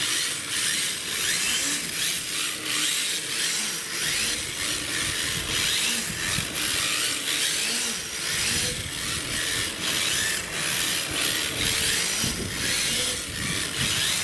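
RC drift cars sliding on rough asphalt: the hard plastic drift tyres make a dense, continuous rasping scrape. Underneath, the electric motors give a faint whine that rises and falls with the throttle.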